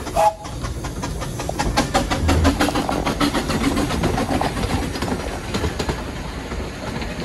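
A small narrow-gauge steam locomotive and its carriages passing close by, the wheels clicking in a quick regular rhythm over the rails. A brief high note sounds just after the start.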